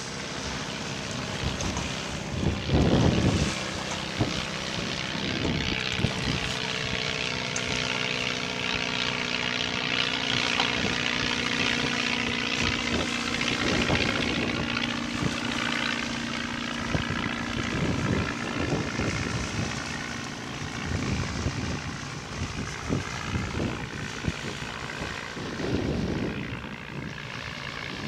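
Steady drone of a distant passing engine, its low hum dropping away about two-thirds of the way through.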